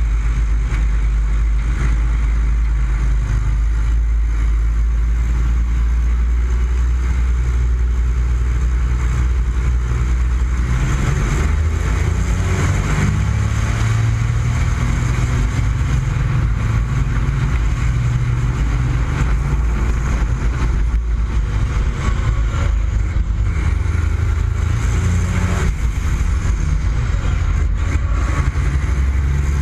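MAN racing truck's turbodiesel engine running hard under race load, heard from just above it. Its low drone steps up in pitch about eleven seconds in and shifts again near the end.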